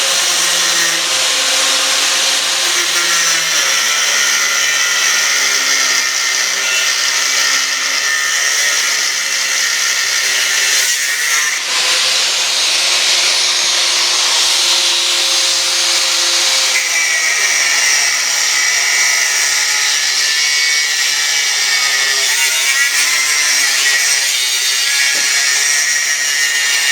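Small angle grinder with a thin cut-off wheel cutting steel angle iron and bed-frame rail: a loud, steady, high-pitched grinding hiss that changes character abruptly twice as the cuts change.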